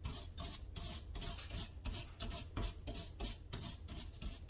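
Rhythmic hand rubbing or scraping, about three strokes a second, steady throughout.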